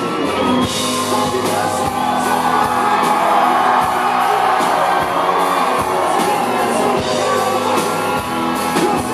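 Live country band playing a song with a man singing lead over acoustic guitar, electric guitar and drums, recorded from the crowd.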